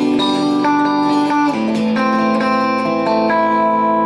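Tokai Gold Star Sound Strat electric guitar playing held, ringing chords and notes that change every second or so. All three pickups are on at once: the 5-way switch is in position 2 or 4 with the push-switch tone pot engaged.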